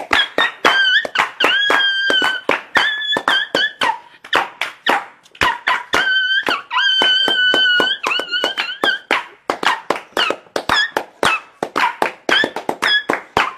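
Upbeat dance music: a fast, steady beat of about four strokes a second under a high melody line of long held, gliding notes.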